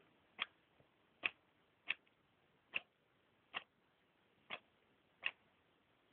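A pet hedgehog coughing: seven short, sharp coughs, evenly spaced a little under a second apart.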